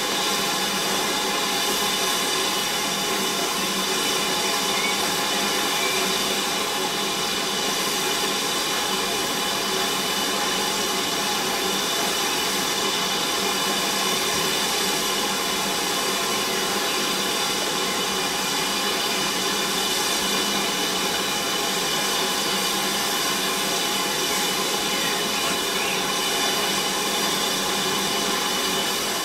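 BR Standard Class 4MT 2-6-0 steam locomotive standing and letting off steam: a steady hiss with several faint whistling tones in it, unbroken throughout.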